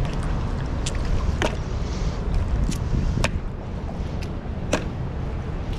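Mussel shells clicking sharply, about five times, as clumps are pulled by hand off a submerged rock and dropped into a plastic esky, over a steady low rumble of wind and water on the microphone.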